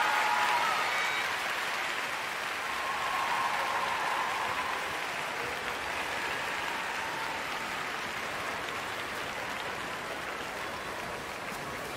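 Large arena crowd applauding steadily after a figure skating program, the applause slowly easing off.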